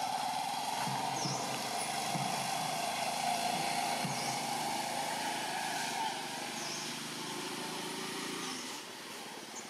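Outdoor background noise: a steady motor-like drone that eases off about six seconds in, with a few faint high chirps.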